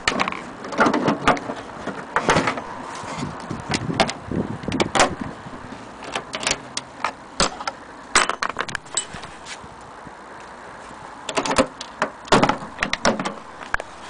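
Irregular clicks, knocks and light rattles of a vintage portable typewriter's carrying case being handled and turned over, coming in clusters.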